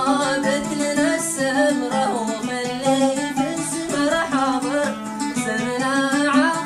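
Yemeni song: a plucked string instrument accompanies a singer's voice, which bends through ornamented, wavering runs of notes.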